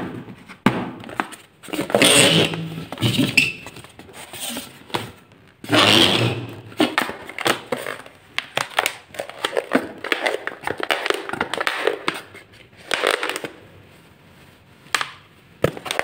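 Long latex modelling balloon twisted and squeezed by hand, its rubber squeaking and rubbing in irregular bursts, loudest about two and six seconds in.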